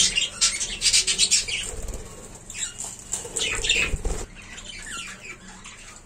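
Budgerigars chattering in short falling chirps over a rapid clicking and rustling from the flock feeding at a seed tub. The clicking is densest in the first second or so, and there is a low thump about four seconds in.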